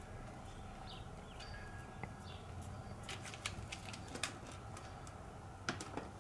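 Birds chirping briefly over a steady low background hum, with scattered sharp clicks and taps: a cluster in the middle, the loudest just past four seconds in, and a couple more near the end.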